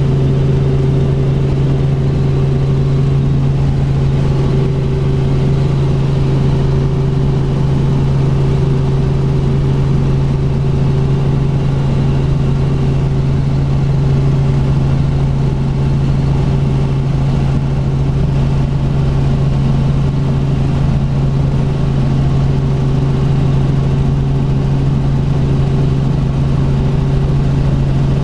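Robinson R44 Raven II helicopter in flight, heard from inside the cockpit: its six-cylinder Lycoming IO-540 piston engine and rotors make a loud, steady drone with a constant low hum that does not change.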